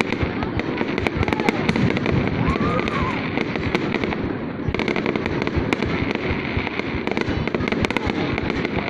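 Fireworks display in full barrage: a dense, unbroken run of bangs and crackling pops, with a heavy low rumble underneath.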